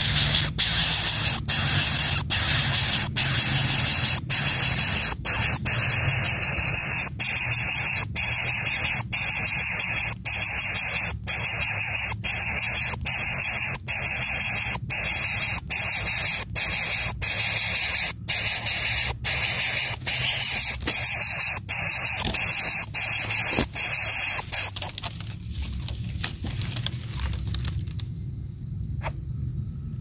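Coucal nestling hissing at the nest: a loud, harsh hiss repeated over and over in pieces of about half a second with short breaks, stopping abruptly about 25 seconds in.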